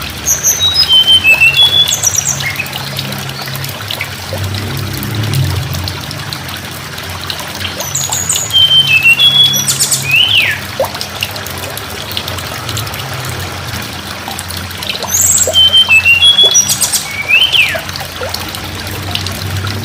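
A forktail (tledekan gunung) sings the same phrase three times, a few seconds apart: a falling series of short, high, thin whistles ending in a quick downward-sliding note. Steady running water sounds underneath.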